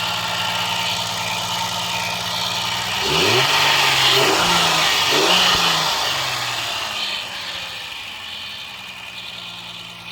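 Peugeot 505 V6 engine idling steadily, then revving up and down a few times about three seconds in before the sound slowly fades. The engine is running again after a hard start from sitting unused for over two months.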